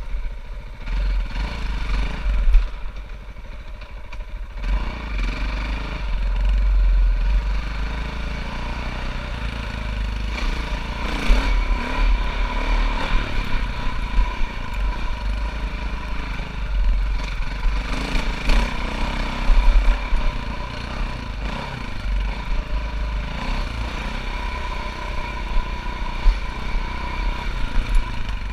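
Dirt bike engine running on a rough trail, its level swelling and easing with the throttle, with occasional sharp knocks and clatter from the bike.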